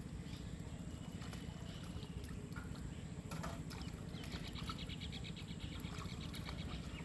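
Pond water trickling and splashing with small knocks. About four seconds in, a rapid high trill from a small animal lasts about two seconds.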